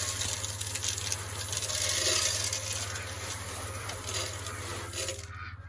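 Water running hard from a hose or spigot to fill a waterer, a steady hiss over a low hum, cutting off about five seconds in.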